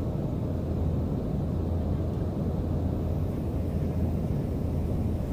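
Steady low drone of a passenger airplane in flight, heard inside the cabin: the even rumble of engines and airflow, unchanging throughout.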